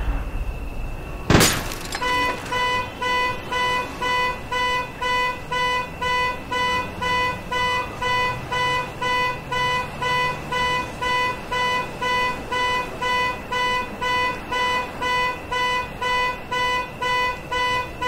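A sharp bang about a second and a half in, then a car alarm sounding the car's horn in regular honks, about two a second, without stopping.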